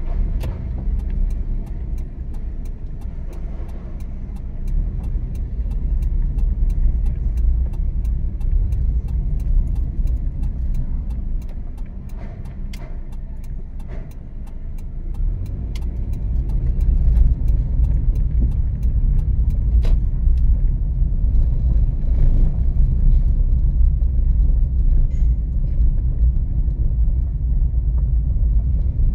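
Car driving: a steady low rumble of engine and tyres, which swells about halfway through as the car picks up speed. For the first two-thirds it comes with a fast, even run of faint sharp ticks.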